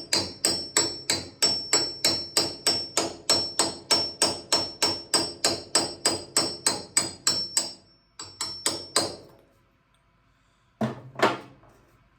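Hammer tapping on a half-inch drive socket used as a driver to seat a tractor steering cylinder seal: quick, even strikes with a metallic ring, about four a second. The run stops about seven and a half seconds in, three more strikes follow, and two duller knocks come near the end.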